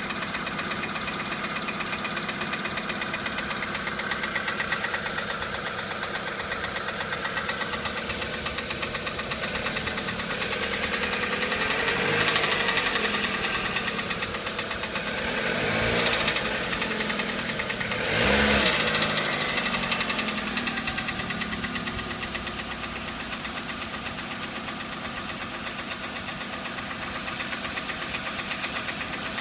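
Hyundai G4EE 1.4-litre four-cylinder petrol engine idling with a rapid, steady knock, revved up and back down briefly three times in the middle.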